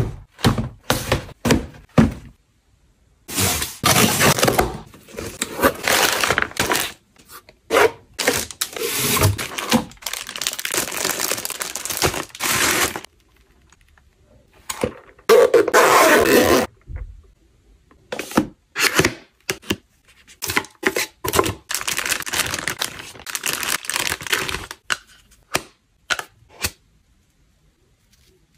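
Hands unboxing and handling packaging and products: a string of sharp taps and thunks on a cardboard shipping box and plastic cases, with several stretches of tearing and crinkling packaging and a few short pauses between them.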